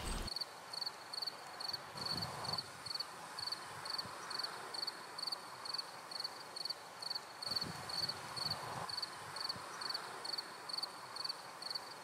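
Cricket chirping steadily: short, high chirps at an even pace of about two a second, over a faint outdoor hiss.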